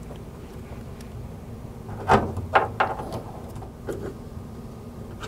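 A few short clicks and knocks of hand work: a small LED under-hood light and a hand tool being handled against the underside of the hood, over a low steady hum.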